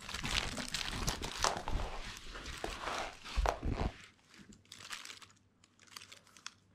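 Crinkling and rustling of a small plush dog toy being handled and shaken, dense for about the first four seconds and then sparser, with a dull thump about three and a half seconds in.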